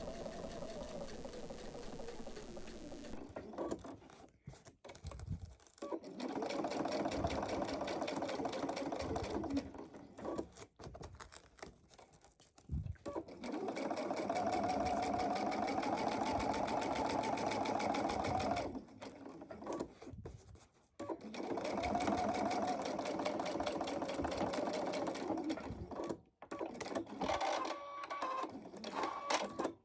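Electric sewing machine stitching Velcro onto fabric tabs in several runs of a few seconds each, with brief stops between them.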